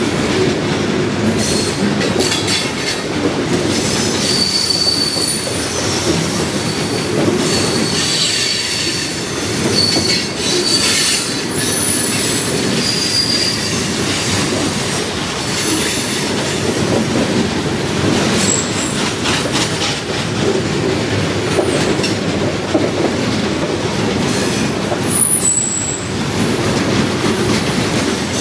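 Freight train hopper cars rolling past: a steady rumble and rattle of steel wheels on rail, with brief high-pitched wheel squeals now and then.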